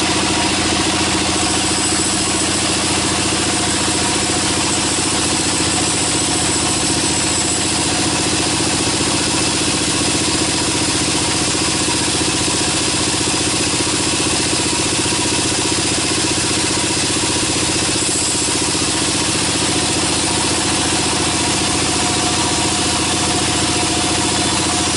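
Horizontal band sawmill running steadily with a constant machine hum while its band blade saws a log into boards.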